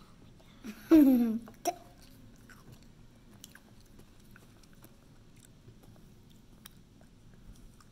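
A boy makes one short, loud vocal sound that falls in pitch about a second in, followed by a sharp click. After that comes quiet chewing of sour candy, with faint scattered clicks.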